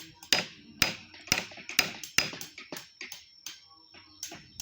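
Wood being carved: a run of sharp knocks, about two a second, that thin out after about three seconds, over a faint steady high whine.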